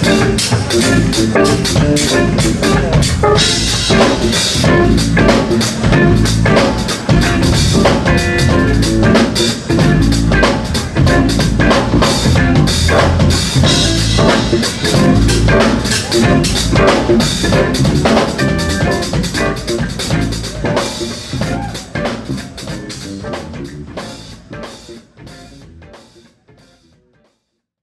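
Music with a prominent drum kit, kick and snare beating a steady rhythm, fading out over the last several seconds.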